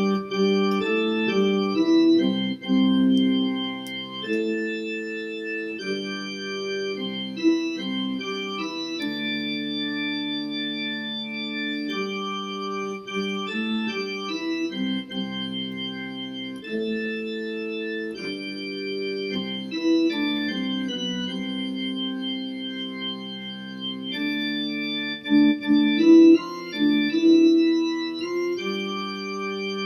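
A slow tune played on an organ-voiced keyboard, in held chords that change every second or two.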